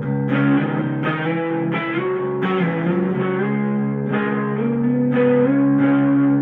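Schecter Demon-6 electric guitar on its active neck pickup, played clean through a Fender Blues Junior amp with spring reverb, tuned to drop C sharp. Picked notes ring over held low strings while a melody line steps up in pitch.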